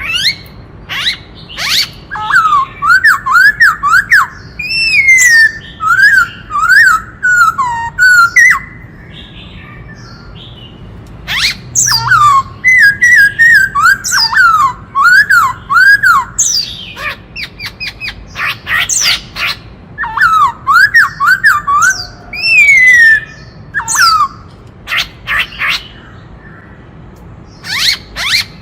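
Black-throated laughingthrush singing: three bouts of rapid, looping whistled notes, each a few seconds long with sharp high notes mixed in, separated by short pauses.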